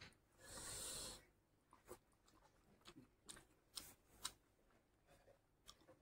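Quiet eating sounds. A short noisy breath about half a second in, then scattered soft wet clicks and smacks of eating rice and curry by hand, fingers squishing the rice and the mouth chewing.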